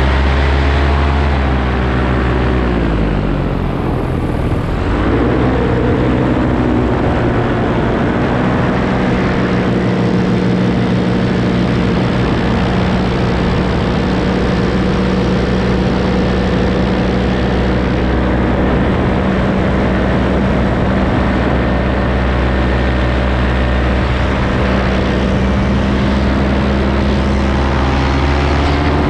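Paramotor engine and propeller running in flight, with wind rushing past the microphone. The engine note swells and sags in the first few seconds, dips around four seconds in, then climbs back and holds a steady cruise drone.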